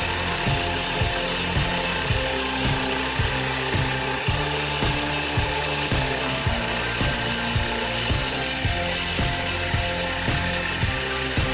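Background music with a steady beat, laid over the steady hiss of a saw cutting wood.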